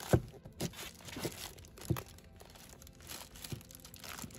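Handling noise as an eyeshadow palette case is opened: crinkling of packaging and about five light knocks, the loudest right at the start.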